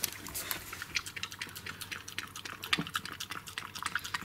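A dog licking ice cream out of a plastic bowl: quick, irregular wet lapping clicks, several a second.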